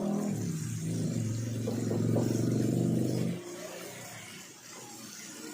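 A motor running with a steady low hum for about three and a half seconds, then dropping away sharply.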